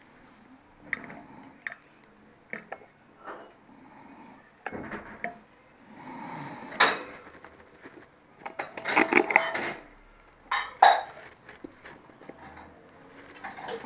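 Stainless steel bowl and hand tools clinking and knocking as they are handled, in scattered strikes with a quick run of clinks about nine seconds in and a sharp knock just after.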